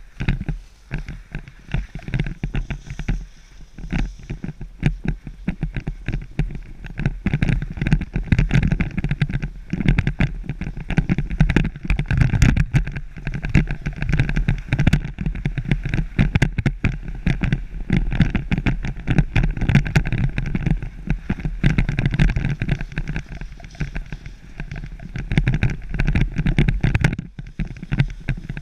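Wind buffeting the microphone of a camera skiing downhill, mixed with the scraping and chatter of skis on packed snow, rising and falling with the skier's speed and turns.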